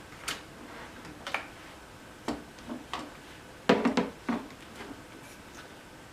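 A series of sharp plastic clicks and knocks from Electrolux UltraFlex vacuum cleaner nozzles and attachments being handled and fitted into place, with a quick cluster of them about halfway through.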